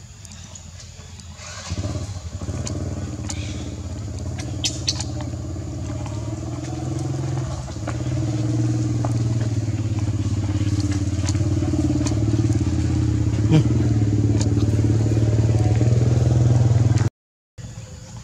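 An engine running steadily with a low hum, starting about two seconds in and slowly getting louder, with a few light clicks over it; it cuts off abruptly near the end.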